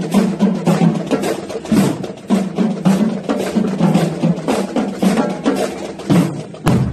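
Marching drum line playing a parade cadence on snare and bass drums, a fast run of sharp strokes over a steady low drum beat.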